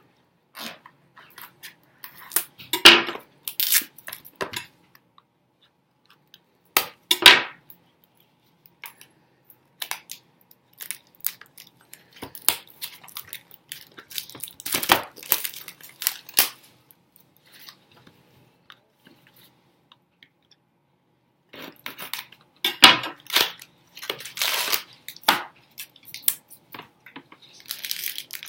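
Hands opening a sealed box of hockey card packs: scattered sharp knocks and scrapes of cardboard and plastic, with a denser crinkling of wrapper near the end.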